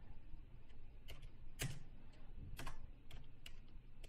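Computer keyboard being typed on: several separate keystroke clicks at an uneven pace.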